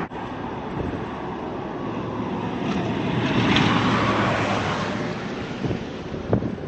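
Vehicle or heavy machinery engine noise that swells to a peak partway through and then eases off, with two short knocks about a second apart near the end.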